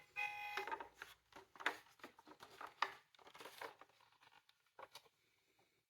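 A toy emergency car's electronic siren tone cuts off about half a second in, then irregular light clicks and rattles of small plastic toy cars being handled, thinning out toward the end.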